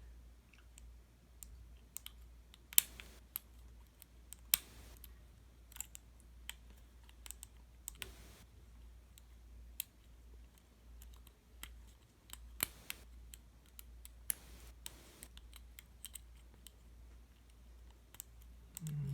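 A steep hook pick working the pin tumblers of a Master Lock LOTO padlock with a 400B keyway, single pin picking under a tension wrench: irregular sharp clicks with a few short scrapes as the pick lifts and sets pins.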